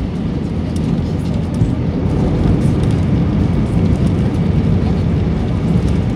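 Airbus A321-200 cabin noise during the landing roll on the runway: a loud, steady rumble of engines and wheels.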